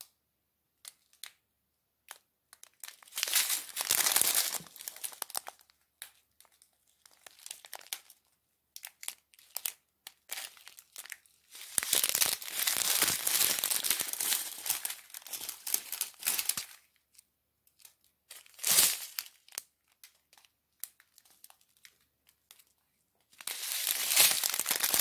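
Clear plastic zip bags of diamond painting drills being handled and shuffled, crinkling in several separate bursts with quiet gaps between; the longest burst comes about halfway through.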